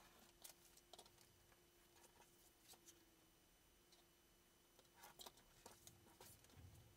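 Near silence with faint scratches and ticks of a rotary cutter being run through wrapping paper along an acrylic quilting ruler, and the paper and ruler shifting on a cutting mat. A faint steady hum lies underneath.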